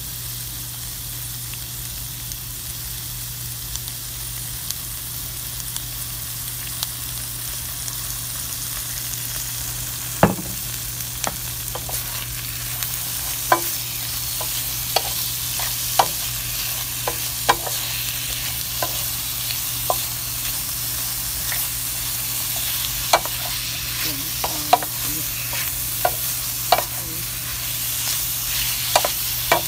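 Asparagus sizzling as it fries in a pan, a steady hiss. From about ten seconds in, a wooden spatula stirs and tosses it, with many sharp clacks and scrapes against the pan.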